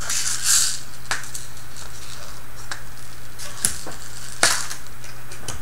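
Fingers rummaging through a small plastic tub of tiny plastic construction-kit parts: a short rattling rustle at first, then scattered light clicks of the parts and tub. A steady low hum runs underneath.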